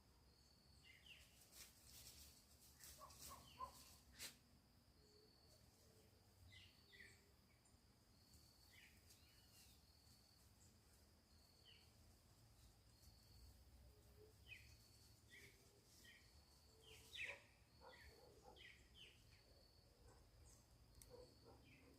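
Faint birdsong: scattered short chirps and whistles from wild birds, with a thin high note repeating about once a second and one louder call near the end.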